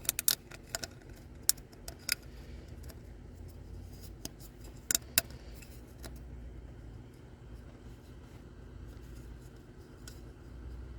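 Sharp clicks and light handling noises from the plastic oil filter cap and its rubber O-rings being worked on by hand: a cluster in the first two seconds and a louder pair about five seconds in, over a faint low hum.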